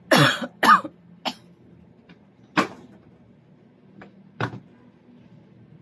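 A person coughing: two loud coughs right at the start, then three more single coughs spaced over the next few seconds.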